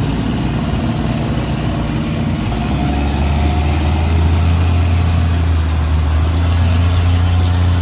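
Truck engine and winch noise during a recovery of a stuck two-wheel-drive Dodge pickup by a Toyota FJ Cruiser's winch. A deep, steady drone comes in about three seconds in and holds as the pull gets under way.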